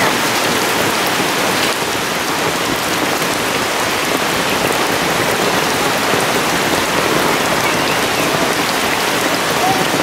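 Steady heavy rain falling on wet paved ground and puddles.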